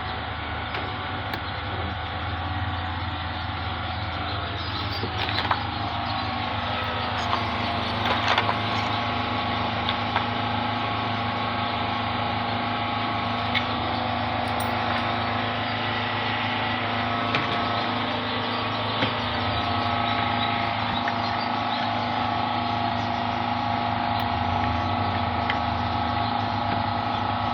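Engine running steadily at idle, an even hum with a few light clicks and taps over it.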